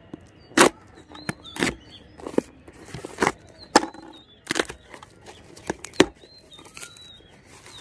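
Packing tape being slit with a knife and ripped off a cardboard shipping box, and the box flaps being pulled open: a string of sharp rips and crackles, about ten in all.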